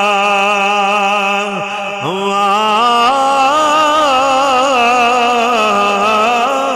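A man singing a long, drawn-out note of a Punjabi Sufi verse, the voice wavering with vibrato and stepping up in pitch about three seconds in.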